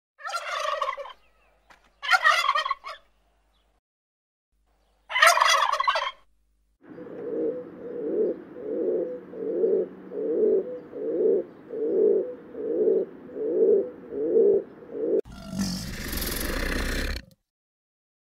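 Animal calls: three short calls in the first six seconds, the third the loudest, then a long series of about ten pulsing calls roughly one a second, and near the end about two seconds of a rough, noisy sound.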